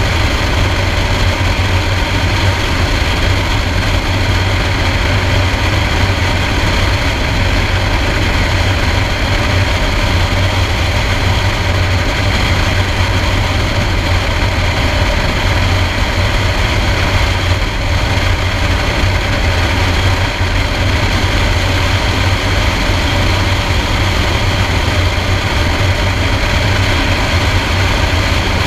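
Single-engine Piper Cherokee's piston engine and propeller running steadily in flight, a constant drone with a strong low hum and no change in power.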